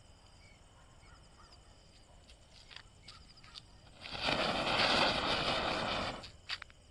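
Chakkar (ground spinner) firework catching after a few faint clicks and burning with a loud spraying hiss for about two seconds, then cutting out. The burn is short, and the user judges the spinner a poor performer.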